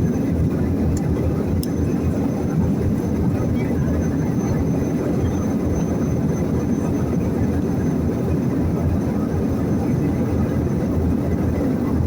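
Steady low roar of an airliner's jet engines and rushing air, heard inside the passenger cabin, with a faint high steady whine over it.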